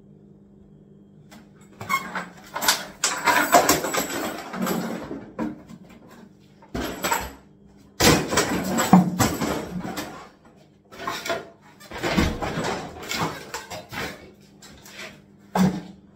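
A removed kitchen part being spun like a spinning top, giving repeated bursts of rattling and scraping against a hard surface over a low steady hum.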